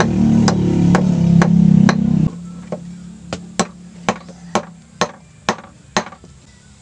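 Claw hammer tapping about twice a second, peening the end of a wire pin flat on a PVC knife scabbard. Background music plays over the first two seconds or so, then cuts off suddenly, leaving the hammer taps alone.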